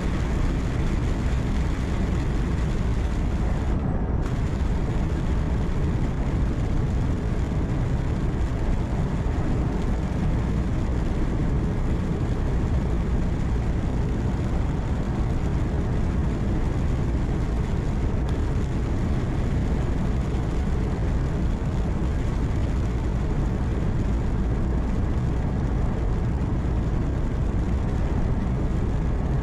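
Steady low rumble of a truck's engine and tyre and road noise heard inside the cab while cruising, with no distinct events.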